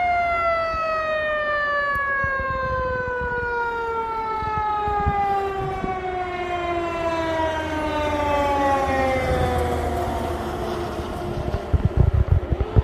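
Fire engine's mechanical siren winding down, its pitch falling slowly and steadily for about ten seconds as it fades. The truck's engine rumbles underneath, and a few low thumps come near the end.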